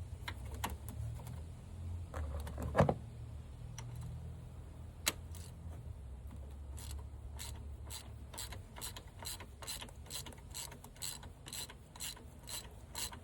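Hand ratchet with a 19 mm socket working the engine coolant temperature sensor loose, its pawl clicking in short, even strokes about three times a second through the second half. A low hum and a knock or two come earlier.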